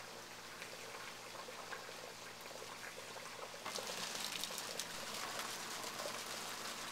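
Water splashing, trickling and bubbling in a reef aquarium's wet/dry sump and drain plumbing, with the drain valve nearly closed and the water level rising. It grows louder and splashier about four seconds in.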